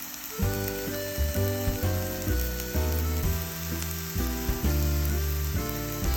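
Enoki mushrooms frying in butter in a pan with a steady sizzle, under background music whose bass and melody come in about half a second in.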